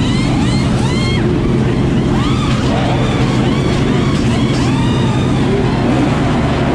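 NASCAR stock-car V8 engines running on pit road: a steady heavy rumble, with engine notes rising and falling one after another.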